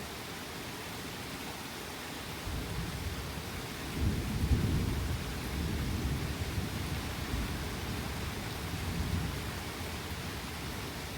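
Steady rain with a long roll of thunder: a low rumble builds a couple of seconds in, is loudest around the middle, and slowly dies away.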